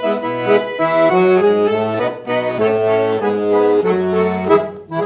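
Piano accordion playing solo: an instrumental passage of a traditional tune, a melody of changing notes over steady low bass notes.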